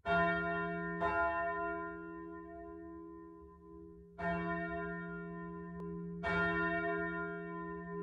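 Church bell ringing: four strikes at uneven intervals, each one humming on for several seconds after the strike.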